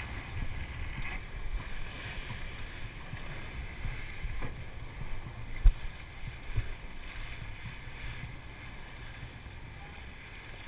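Sportfishing boat underway through the water, a steady rumble with wind buffeting the microphone. A sharp thump about five and a half seconds in, and a smaller knock a second later.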